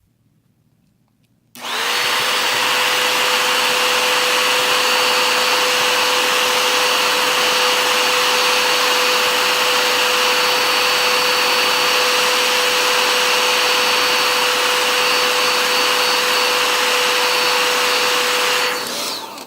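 Remington 1875-watt hair dryer switched on about a second and a half in and running steadily, a rush of air with a constant hum in it, then switched off near the end.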